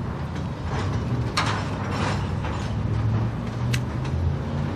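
Freight train rolling past: a steady low rumble with a few sharp metallic clicks and creaks from the cars.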